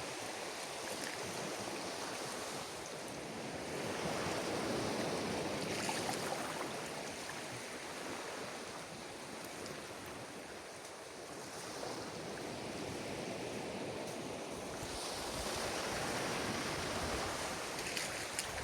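Surf on a beach: a steady wash of breaking waves, swelling as a wave comes in about four seconds in and again near the end.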